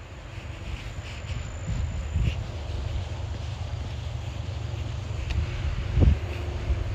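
Steady low rumble with a noisy, wind-like hiss, and a single heavier thump about six seconds in.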